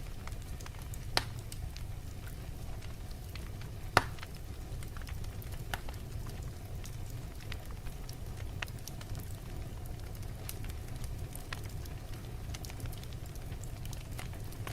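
Wood fire burning in a fireplace: a steady low rumble of flames with scattered crackles, and two louder pops about one and four seconds in.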